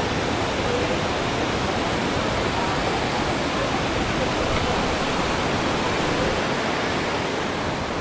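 Waterfall: a loud, steady rush of falling water that holds even throughout, with no breaks.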